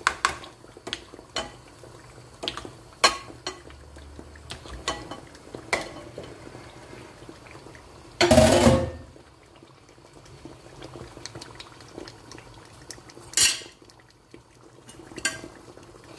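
Spoons tapping and scraping against a glass bowl and a metal pot as tomato sauce is scraped into the pot, a string of short knocks with a louder clatter about eight seconds in and another near the end.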